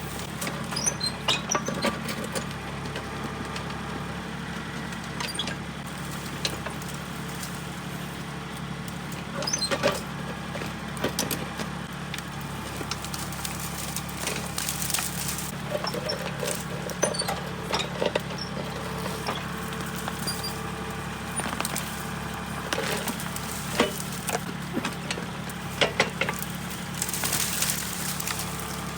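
Small Kubota tractor's diesel engine running steadily under backhoe work, with scattered knocks and scrapes as the bucket digs into rocky soil.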